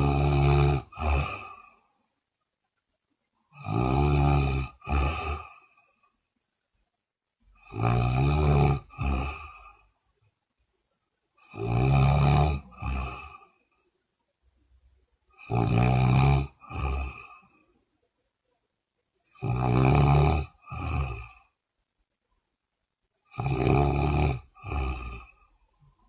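A woman snoring loudly, about once every four seconds, seven times. Each snore is a long pitched rattle of about a second, followed at once by a shorter second snore, with silence between.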